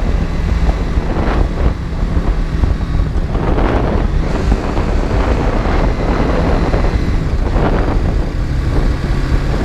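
BMW G310GS single-cylinder engine running steadily at road speed, heard from a camera mounted on the motorcycle, with wind buffeting the microphone in uneven gusts.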